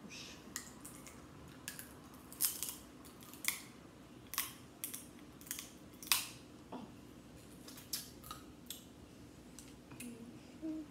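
Snow crab legs being cracked and snapped apart by hand: a string of sharp, irregular shell cracks and clicks, one or two a second.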